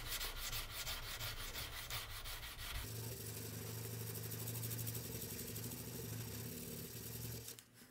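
Sandpaper rubbed back and forth by hand along a damascus steel blade in quick, rhythmic strokes. About three seconds in, a steady low hum joins, and everything drops away just before the end.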